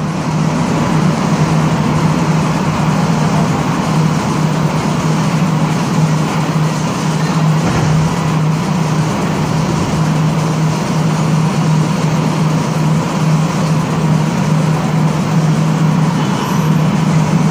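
Steady hum and rushing noise of an AZUR rubber-tyred metro train, heard from inside the car as it draws into a station and stands at the platform. A strong low hum sits under a faint steady tone.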